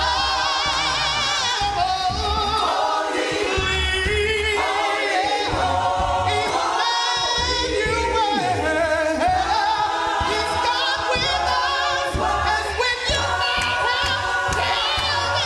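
A cappella gospel ensemble singing without instruments: a woman's lead voice with wide vibrato over sustained choir harmonies.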